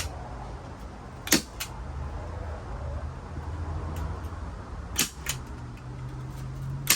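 Staple gun driving staples to fix anti-skid grip tape onto a step tread. There are sharp snaps about a second in, around five seconds in with a fainter one just after, and again near the end.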